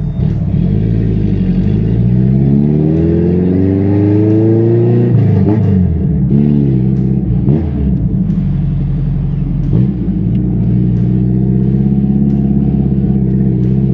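Ford Versailles' carbureted AP four-cylinder engine (Weber 446 carburettor) driving on the road. It revs up for about five seconds, drops sharply as if at a gear change, varies for a few seconds, then runs steadily. No suspension squeak is heard now that the loose coil spring has been reseated on its shock-absorber plate.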